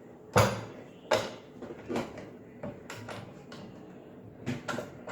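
A black plastic adapter being pushed onto a gas stove's burner-knob spindle and worked around: a series of sharp plastic clicks and knocks at uneven intervals, the loudest about half a second in.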